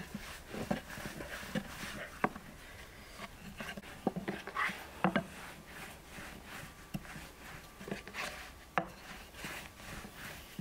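Wooden rolling pin rolling out dough on a floured wooden board: a rubbing sound with irregular sharp knocks of wood on wood.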